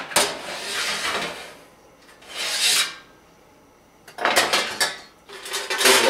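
Metal bake sheet scraping along the side guides of a toaster oven as it is slid in and out. There is a long scrape of about two seconds, a shorter one, a brief pause, then more scraping and clatter of the sheet near the end.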